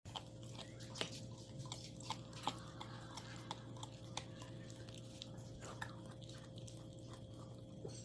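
A retriever chewing: irregular small clicks and smacks, roughly one or two a second, over a steady low hum.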